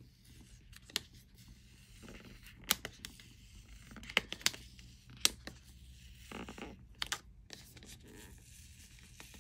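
Adhesive seal sticker being peeled off a cardboard product box, giving a handful of short, sharp crackling tears at irregular intervals with quiet handling in between.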